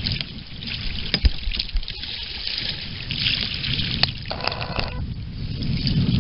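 Kayak paddle strokes: the blades dip and splash in the river and water trickles and drips off them, with a low rumble of wind on the microphone and a few sharp knocks.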